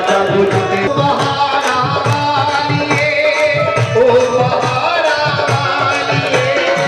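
Devotional bhajan music: a singer's wavering melody over a steady hand-drum rhythm, with a crowd clapping along in time.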